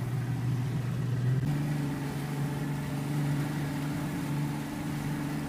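A boat's engine running steadily under way, its hum stepping up in pitch about a second and a half in as it speeds up.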